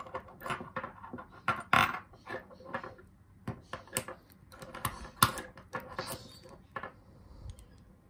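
Irregular metal clicks and clinks from handling a brass Lockwood padlock and its cylinder while a metal plug follower is lined up and pushed against the cylinder, the loudest knocks about two and five seconds in.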